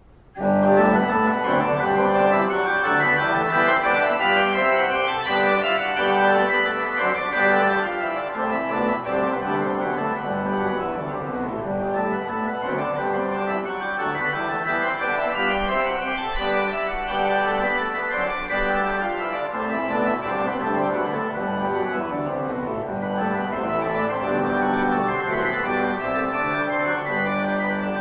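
Pipe organ playing, starting abruptly about half a second in: sustained chords and runs of notes rising and falling over a repeated low note.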